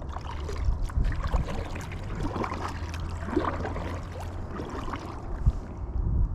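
Water splashing and trickling close to a kayak in short, irregular bursts, over a steady low rumble.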